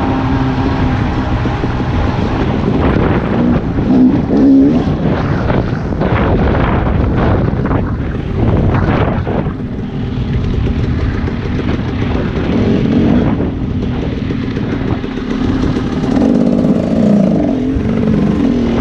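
Dirt bike engine running as the bike is ridden along a dirt track, its pitch rising and falling as the throttle opens and closes.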